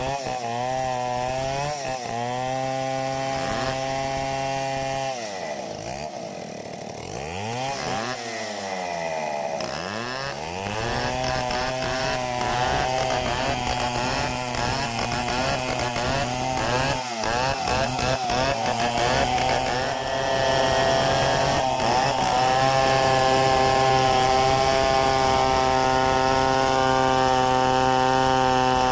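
Two-stroke chainsaw revving up and down, its engine pitch sweeping low and back up, then held at steady high revs while it cuts through mahogany, getting louder for the last third.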